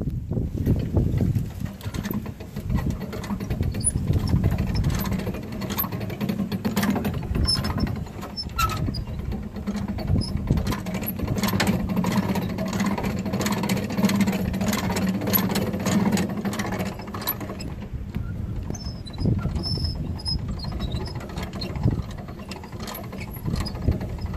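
Winch lowering a John Deere STX46 riding mower down metal ramps off a pickup bed: a steady low hum with frequent clicks and rattles, changing briefly about two-thirds of the way through.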